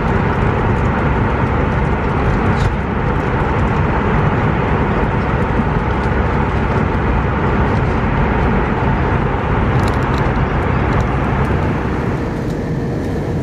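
Steady cabin noise of an Airbus A319 in flight: engine and airflow noise with a faint steady hum. About twelve seconds in it drops slightly and sounds duller.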